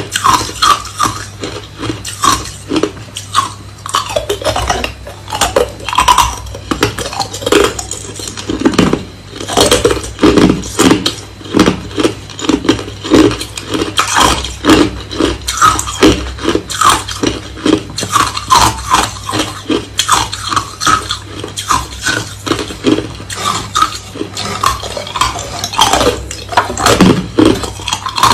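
Hard, clear crushed ice being chewed close to the microphone: a loud, continuous run of crunches, several a second.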